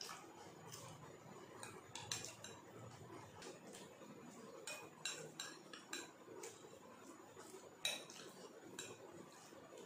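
Spoon clinking and scraping in a serving bowl and on plates: scattered light clinks, the sharpest about two seconds in and just before eight seconds.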